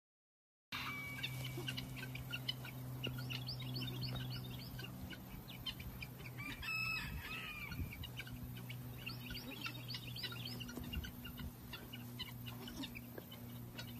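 Many birds chirping busily, with one louder, short call about seven seconds in, over a steady low hum. The sound cuts in abruptly just under a second in.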